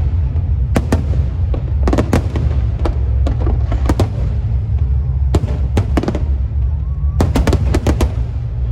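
Fireworks and firecrackers going off in irregular sharp bangs, several clustered in quick succession around two, five and seven to eight seconds in, over a steady low rumble.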